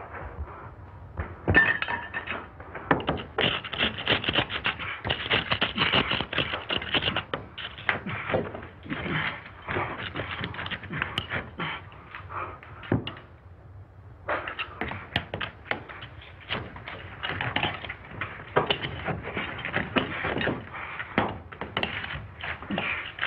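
Bricks knocking and scraping against each other as they are fitted into an opening in a brick wall: a dense run of knocks and clatters, with a short lull a little past halfway.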